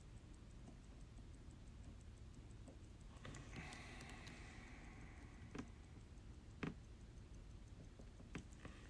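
Near silence with a few faint, isolated small clicks of watchmaker's tweezers and tiny parts being handled on a watch movement.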